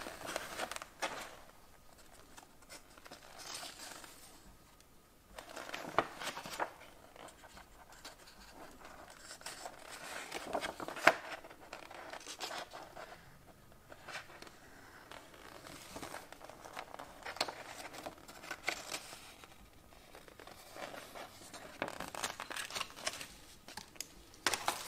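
Pages of a paper instruction booklet being turned and handled by hand: soft, intermittent paper rustling with a few sharper swishes as pages flip over.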